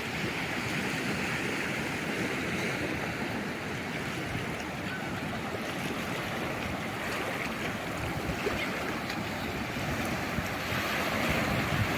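Calm sea waves washing onto the shore in a steady, even wash, swelling slightly louder near the end.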